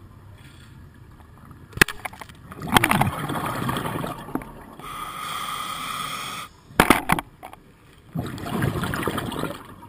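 Scuba regulator breathing heard underwater: a burst of exhaled bubbles gurgling, a steady hissing inhale, then another burst of bubbles. A few sharp knocks come about two seconds in and again near seven seconds.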